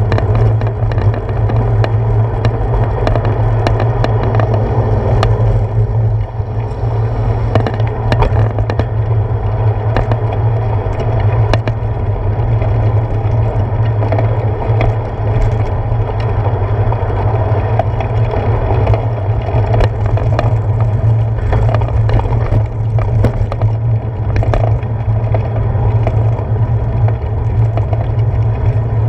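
Bicycle riding along a paved path, picked up by a handlebar-mounted GoPro: a steady low rumble of tyres rolling on asphalt and wind, with scattered clicks and knocks as the bike goes over bumps.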